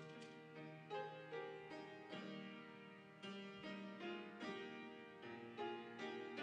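Slow piano music: chords and single notes struck about once a second and left to ring.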